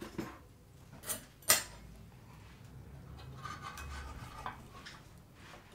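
Knife and fork clinking and scraping on a plate while cutting a slice of fried pork loin. A few sharp knocks in the first two seconds, the loudest about a second and a half in, then softer scraping of the cutlery across the plate.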